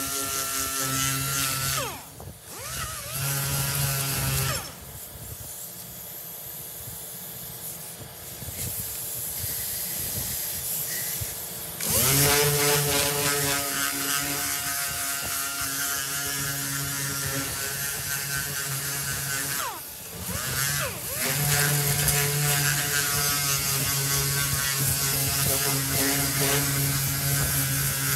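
Orbital sander running against a car's sheet-metal body panel, sanding down a welded repair. The motor's hum dips with a falling-then-rising pitch about two seconds in and again near twenty seconds. It is quieter from about five to twelve seconds, then comes back up to full speed.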